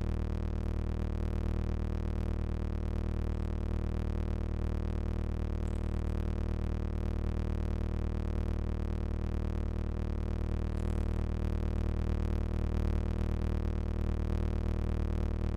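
A steady, low, droning hum with many overtones that does not change in pitch or loudness. Its source is unknown: the uploader calls it a weird noise they cannot identify.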